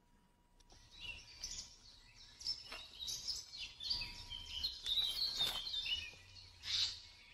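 Forest birdsong from a binaural field recording: quick high chirps and trills that start about a second in and grow busiest around the middle, with one more loud call near the end.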